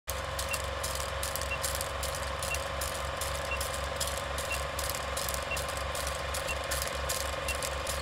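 Film-projector countdown sound effect: a projector's steady whirring clatter with crackling clicks, and a short high beep once a second.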